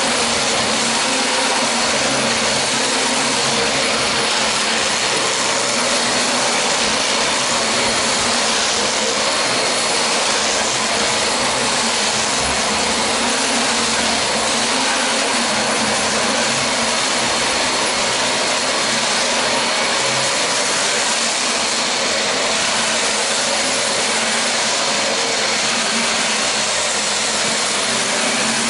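Upright vacuum cleaner running steadily on a rug, a constant rushing noise with a thin high whine over it.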